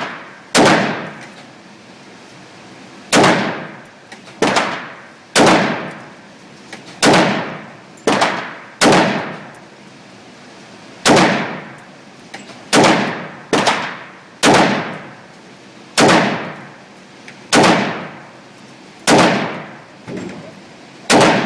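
Colt AR-15 semi-automatic rifle fired shot after shot at an uneven pace, about sixteen rounds, each report ringing out and dying away over about half a second.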